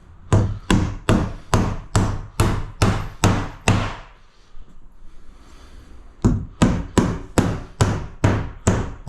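Hammer driving nails through a cement sheet: quick, evenly spaced blows, about three a second, ten or so strikes, then a pause of about two seconds and eight more.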